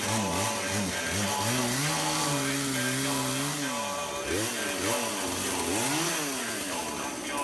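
Chainsaw engine running, its pitch held steady for about two seconds, then dipping and coming back up several times in the second half.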